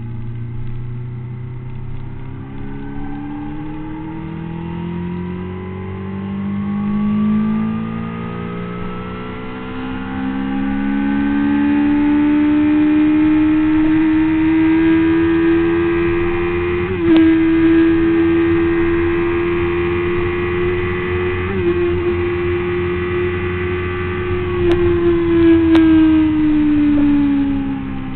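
Honda CBR600RR's inline-four engine heard from onboard with wind rush on the microphone. Its pitch climbs steadily as the bike pulls down a straight, holds high with two brief breaks, then falls away near the end as it slows.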